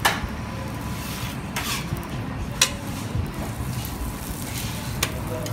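Metal spatula scraping and clacking on a flat griddle where murtabak (stuffed pancakes) are frying, over a low sizzle. A few sharp clacks stand out, the loudest right at the start and about two and a half seconds in.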